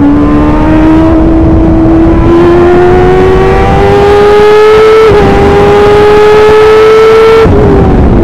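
Formula 1000 race car's engine, a motorcycle-derived 1000 cc unit, pulling hard with its high-pitched note climbing steadily. About five seconds in it dips briefly at a quick upshift, then climbs again. Near the end the note falls away, under a constant rumble of wind and tyre noise.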